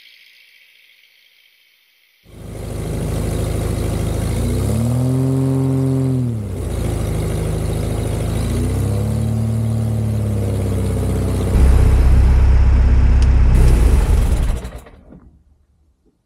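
Light aircraft's Jabiru 2200A four-cylinder air-cooled engine and propeller running on the ground, revving up and back down twice, then a louder low rumble before the sound stops near the end.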